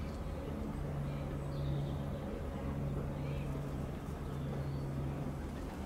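Steady low electric hum of a train at the station, its tones dropping out and coming back, with faint bird chirps above it.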